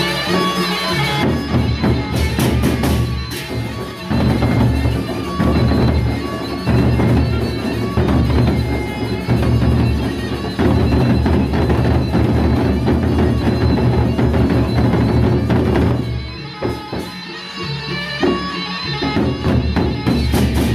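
Gendang beleq ensemble playing: large Sasak barrel drums beaten with sticks in a dense, heavy rhythm, with steady held tones of the ensemble above. The drumming starts about a second in and thins to sparser strikes near the end.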